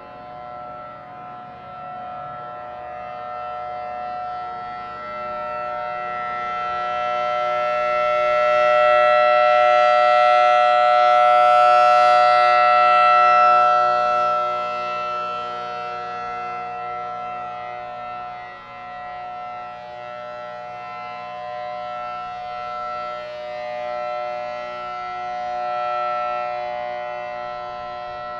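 Outdoor warning siren sounding a steady tone, its pitch unchanging. As it rotates it grows louder to a peak about ten seconds in, fades, then swells again near the end.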